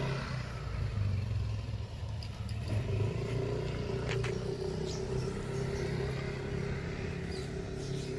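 Engine idling steadily, with a couple of light clicks about four seconds in.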